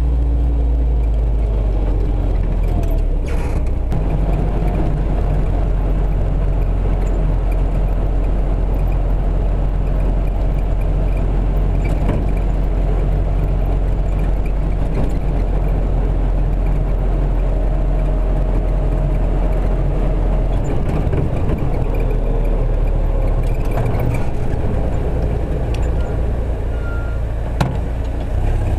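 Willys CJ3B Jeep engine running steadily as the Jeep drives, heard from just above the hood, with a heavy low rumble throughout.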